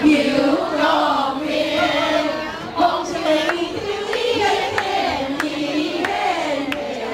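A roomful of voices singing together as a group, with a few sharp clicks along the way.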